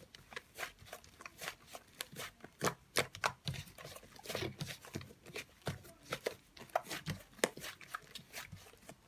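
Irregular sharp clicks, taps and light knocks of objects being handled, several a second at uneven spacing.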